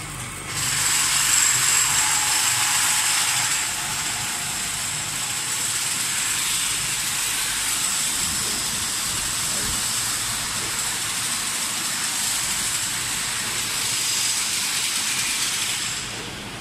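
Silica sand processing machinery running steadily: an even hiss with a thin high whine over a low hum. The hiss is louder in the first few seconds, while dry sand pours down a chute into the machine.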